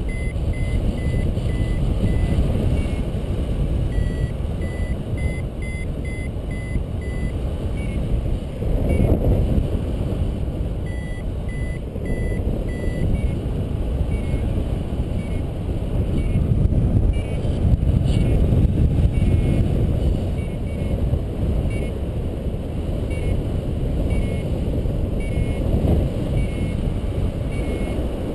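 Wind rushing over the microphone of a paraglider in flight, with a paragliding variometer's short repeated beeps, the sign of the glider climbing in lift. The beeps come in runs and sit a little higher in pitch in the second half.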